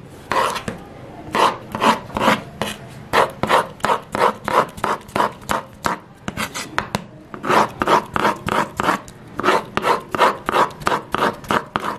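Chef's knife chopping tomatoes on a wooden cutting board: repeated cuts through the flesh ending on the board, about three strokes a second, with a short pause about six seconds in.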